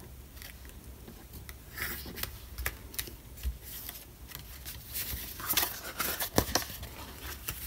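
Cardstock being handled: paper pieces pressed and slid flat on a card base, then the folded card picked up and flexed, giving scattered rustles, scrapes and sharp taps, busiest around two seconds in and again near six seconds.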